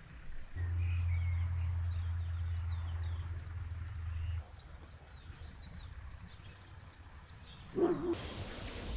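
Small birds chirping. A steady low hum is the loudest sound for the first four seconds or so, and there is a brief bump near the end.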